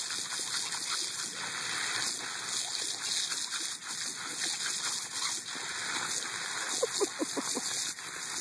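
Water jetting from a garden hose nozzle, splashing steadily against a dog's muzzle and the grass as the dog bites at the stream. About seven seconds in, there is a quick run of short high-pitched sounds.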